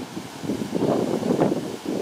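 Gusty sea wind buffeting the microphone, strongest in the middle and easing near the end, over the wash of surf breaking on rocky ledges.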